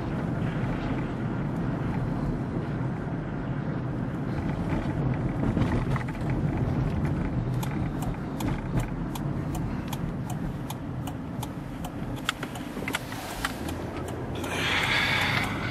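Car driving slowly, its engine and tyre rumble heard from inside the cabin. A run of light, irregular ticks comes in about halfway through, and a short hiss sounds near the end.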